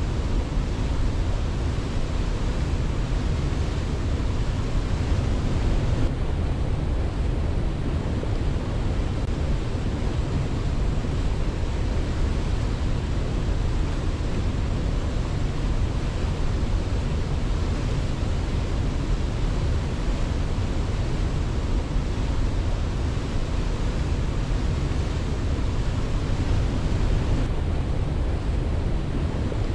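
Waterfall rushing steadily: an even, unbroken roar of falling water, heaviest in the low end, with no birdsong over it.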